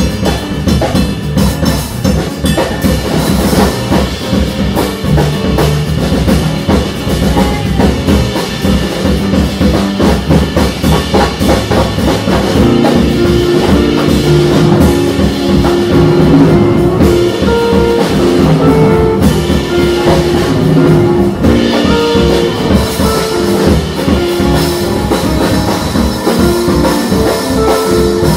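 Live jazz drum kit played busily, with dense strokes on drums and cymbals. From about halfway, held and repeated pitched notes from the band's other instruments sound strongly under the drums.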